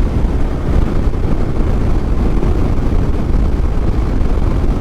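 Heavy wind noise buffeting the microphone while riding a motorcycle at road speed: a loud, steady, low rumbling rush with rapid flutter, which the rider calls so much wind noise.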